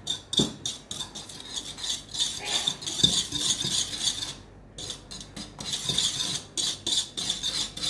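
Stainless steel balloon whisk beating egg yolks and granulated sweetener in a ceramic bowl. Quick repeated strokes of the wires scrape and tap against the bowl, with a brief pause about halfway through.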